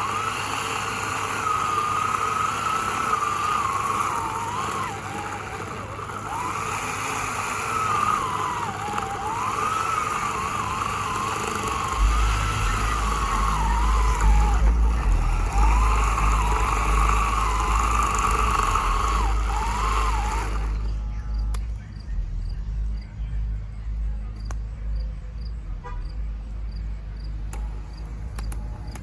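Hyper Tough 9-amp 14-inch corded electric chainsaw running and cutting wood, its motor whine wavering in pitch as the load changes. It stops abruptly about 21 seconds in, leaving crickets chirping.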